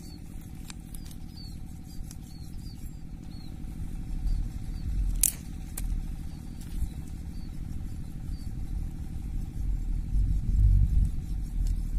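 A low, uneven rumble that grows louder about four seconds in and again near the end, with short high chirps repeating about twice a second over the first few seconds and one sharp click about five seconds in.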